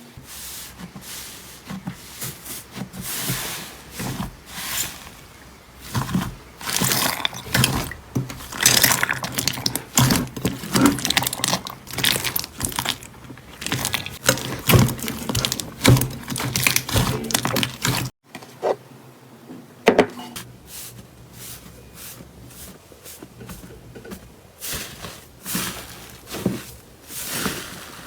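Slime being squished and pressed by hand: a dense, irregular run of squelches, pops and crackles. After a sudden break about 18 seconds in, the handling goes on more sparsely and quietly.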